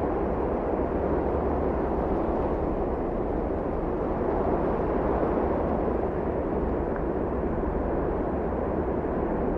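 Steady low rushing noise, even throughout, with no separate knocks, voices or tones.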